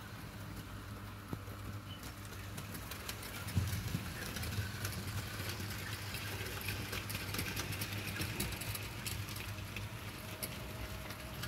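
OO gauge model train, a Bachmann GNR Atlantic hauling Hornby four-wheeled coaches, running on sectional track: a steady motor hum with a fast patter of wheel clicks over the rail joints, getting louder about three and a half seconds in.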